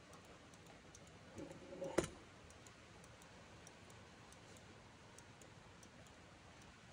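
Faint room tone with light scattered ticking, and one sharp click about two seconds in.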